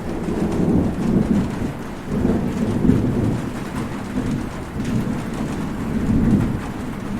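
Heavy rain falling steadily, with low rolling thunder that swells and fades about three times.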